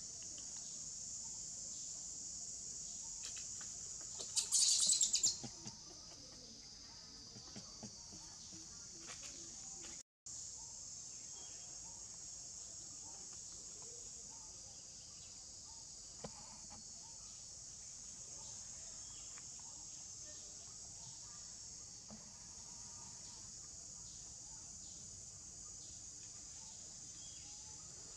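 Steady high-pitched outdoor insect chorus. About four seconds in, a loud chirping call lasts about a second. The sound drops out for a moment at about ten seconds.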